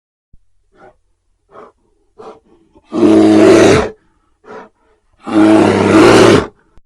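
A large wild animal roaring: a few short, soft grunts, then two loud, drawn-out roars about two seconds apart.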